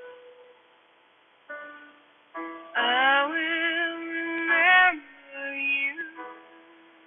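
Slow piano music; a singing voice comes in about three seconds in with held, wavering notes, then a shorter sung phrase follows.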